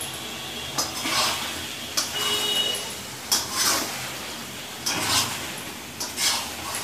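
Metal spatula scraping and stirring chicken pieces around a steel kadai, in repeated strokes roughly once or twice a second. The metal rings briefly about two and a half seconds in.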